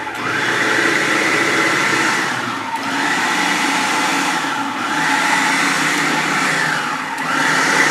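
Food processor motor being pulsed while chopping a bowl of pesto: it whirs up in pitch and falls back about every two seconds, four times over.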